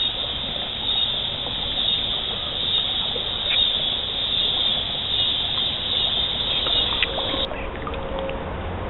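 Flowing creek water: a steady rushing hiss that cuts off abruptly about seven and a half seconds in.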